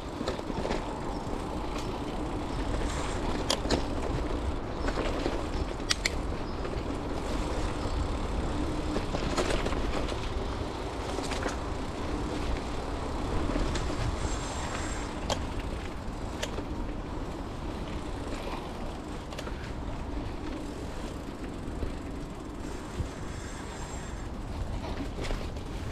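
Mountain bike ridden along a dirt singletrack: a steady rolling rumble from the tyres, broken by frequent sharp rattles and clicks as the bike goes over bumps.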